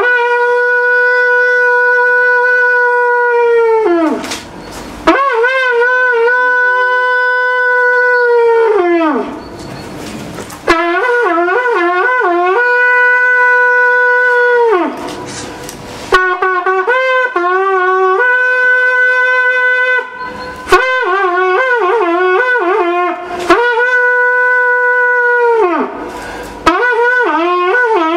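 A shepherd's horn (Polish róg pasterski) played in a series of loud calls: long held notes and quick trills between two or three pitches, in about six phrases broken by short pauses for breath.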